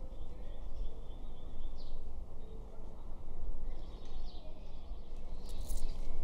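Outdoor ambience: a steady low rumble with a few short bird chirps over it.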